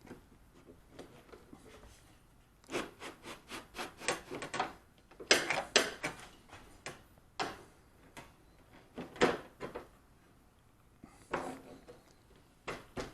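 Refrigerator door hinge parts being handled and fitted by hand: scattered clicks, knocks and rubbing in short clusters, with quiet gaps between them.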